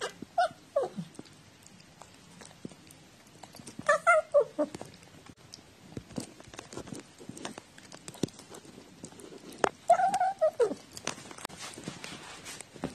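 House cat meowing three times, each call a drawn-out cry that falls in pitch. Short clicks and taps come between the calls.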